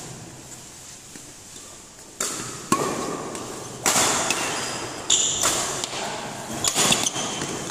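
Badminton rackets striking a shuttlecock in a fast doubles rally: about six sharp smacks at uneven intervals, starting about two seconds in, with short high squeaks from court shoes between them.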